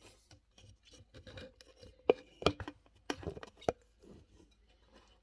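Irregular sharp clicks and crunching, with four loud cracks close together about two to four seconds in.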